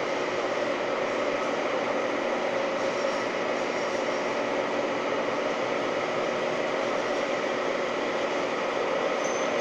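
Holzmann ED 1000 PI DIG metal lathe running steadily at 770 rpm while turning a long, thin steel shaft held in a fixed steady rest, giving an even mechanical hum.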